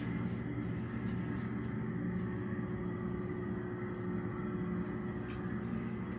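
Steady mechanical hum of a running motor or pump, holding one even pitch, with a few faint clicks.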